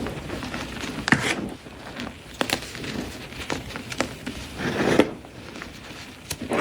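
Blocks of dyed gym chalk (magnesium carbonate) being crushed, crunching and crumbling. Sharp snaps sound repeatedly over softer dusty crumbling.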